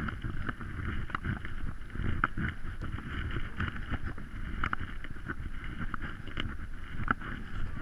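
Footsteps crunching on snow over lake ice, an irregular crunch about every half second to second, over a steady low rumble of wind on the microphone.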